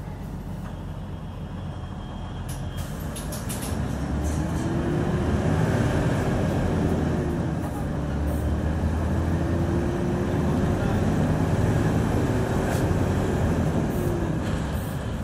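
Hyundai Aero City 540 bus's diesel engine accelerating under load. Its revs climb over a few seconds, fall away about halfway through as it shifts gear, then climb again and ease off near the end.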